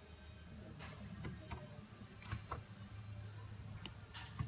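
A few faint, scattered clicks over a low steady hum.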